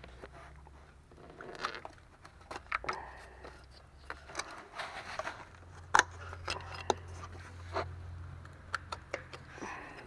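Ratchet and socket clicking and scraping on the 10mm bolts that hold the ignition coils, in scattered sharp clicks, the loudest about six seconds in, over a faint low hum.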